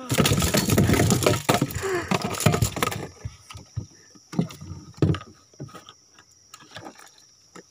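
Loud rubbing and knocking of clothing and gear against a body-worn camera for about three seconds, stopping abruptly, then a few scattered knocks.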